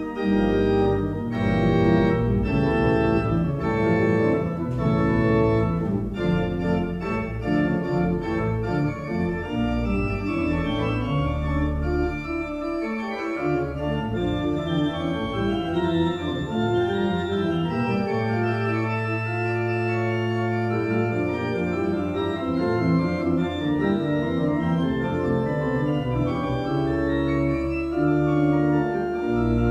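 Church pipe organ being played: full chords over a pedal bass line, with quick moving notes in the first half and a long held chord about two-thirds of the way through.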